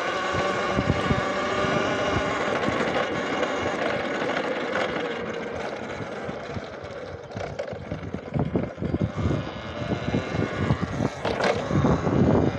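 Talaria electric dirt bike riding a rough trail: a steady electric motor and drivetrain whine for the first five or six seconds. The whine then fades under irregular knocks and thuds from the bike going over rough ground.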